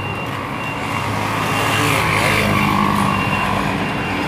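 Road traffic with a heavy vehicle's engine running close by, a low steady hum under broad road noise that swells about a second in and eases toward the end.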